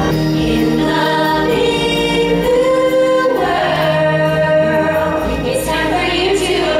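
Cast of a live stage musical singing a song together with musical accompaniment, in long held notes that change pitch every second or so.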